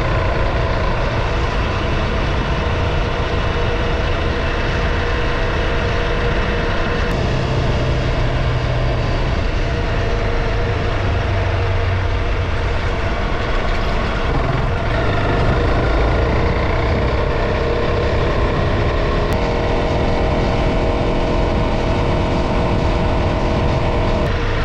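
Honda CRF300 Rally's single-cylinder four-stroke engine running steadily under way, its engine note shifting to a new pitch a few times.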